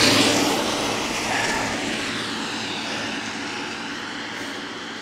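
Minibus driving away on a wet road: tyre hiss and engine noise fading steadily as it recedes.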